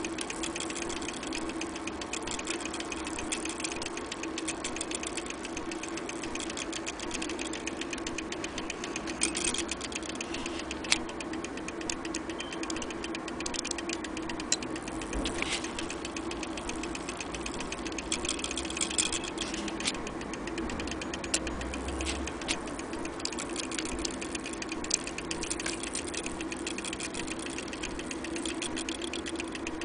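Vintage Westminster mantle clock movement running, its escapement ticking in a quick, steady beat, with a few louder single clicks now and then.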